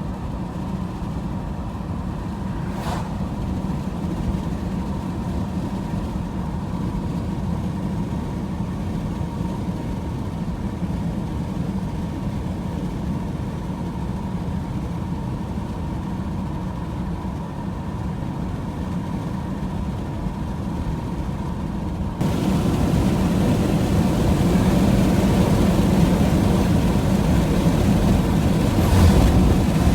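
Steady road and engine noise heard from inside a moving vehicle: a low rumble with a faint steady whine. About 22 seconds in it steps up louder and hissier, as with more speed or wind.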